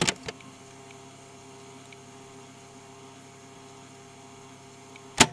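A cheap tape recorder clicked on, with a second click just after, then a steady hum and hiss while it runs, and a loud click as it stops near the end.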